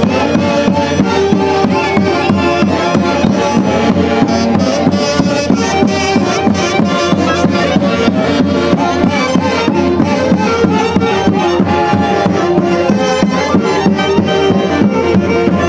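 Orquesta típica from Huancayo playing a traditional Andean dance tune, with held melody lines over a steady, even beat.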